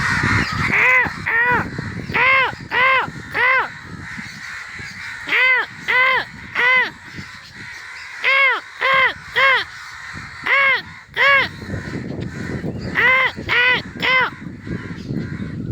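Crows cawing: loud, harsh caws in quick runs of two to four, each call arching up and falling in pitch, with pauses of a second or more between runs.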